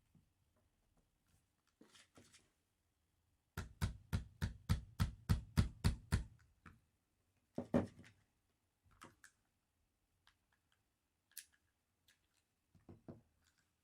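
Clicks and knocks from handling an airsoft 1911 pistol and its parts: a run of about a dozen quick, sharp clicks at about four a second, then a few scattered single clicks and knocks.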